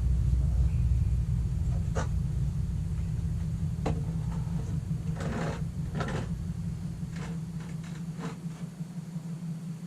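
Scattered knocks and clicks, with a short scrape in the middle, from shelf parts being handled during assembly, over a steady low hum.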